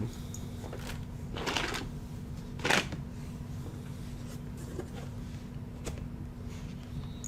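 Small plastic Lego pieces rustling and clicking as they are picked through in a parts bin, with a rustle about one and a half seconds in and a sharper clack near three seconds.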